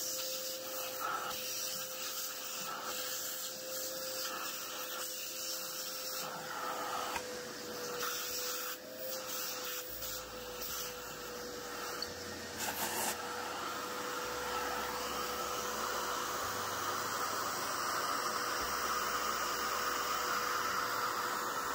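Vacuum cleaner running steadily, its hose sucking coffee grounds out of an espresso grinder's burr chamber: a rush of air over a steady motor whine, the rush changing briefly now and then in the first half as the nozzle is moved about.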